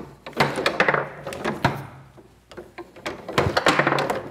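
Foosball game in play: the ball struck by the rod-mounted players and bouncing off the table walls, an irregular run of sharp knocks and clacks, thickest near the start and again about three seconds in.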